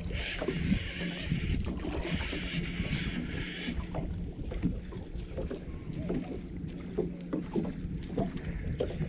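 Baitcasting reel being cranked in stretches to work a topwater popper, giving a whirring hiss, over small water slaps against the boat hull. A steady low hum runs underneath and drops out for a couple of seconds in the middle.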